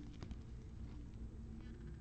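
Faint handling of trading cards: a light click or two as cards are moved, over a steady low hum.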